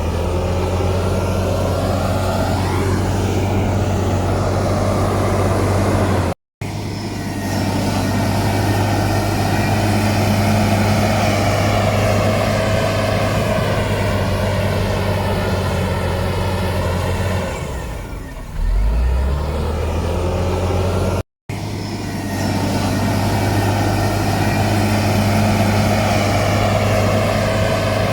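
Heavy diesel engine of earthmoving machinery running steadily, its pitch wavering slightly, with two brief drops to silence.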